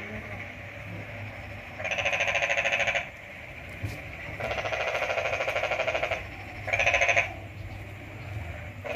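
Three trilling animal calls over a low steady hum: two long ones of one to two seconds each, then a short one about seven seconds in.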